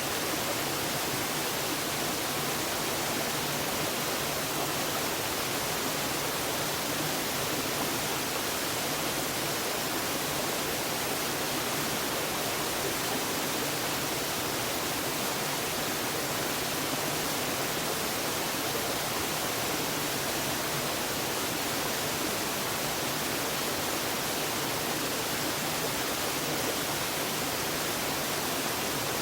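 Waterfall: the steady rush of falling water, an even hiss that does not change.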